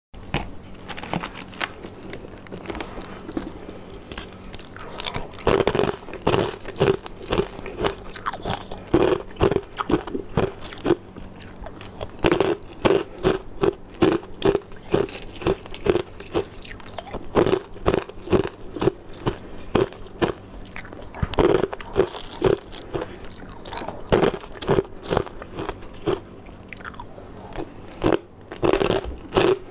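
A person biting and chewing chunks of ice, close to the microphone: runs of sharp, quick crunches, about three a second, broken by short pauses.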